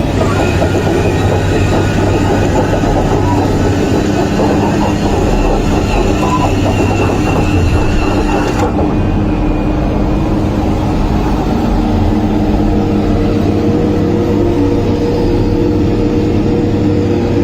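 Radio-controlled construction machinery running: a loud, steady mechanical drone with a few held tones. The hiss in the upper range cuts off abruptly partway through.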